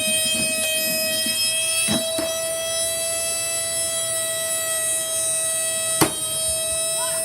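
Shark Rotator vacuum cleaner's motor running flat out with a steady high-pitched whine, being deliberately run to burn it out. A light knock about two seconds in and a sharper one about six seconds in.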